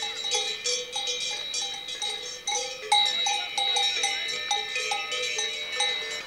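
Several cowbells of different pitches clanking irregularly as a herd of cows walks, their notes ringing over one another.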